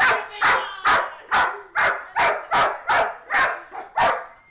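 Dog barking over and over, about two barks a second, stopping shortly before the end. It is alarm barking at a wall clock the dog is spooked by.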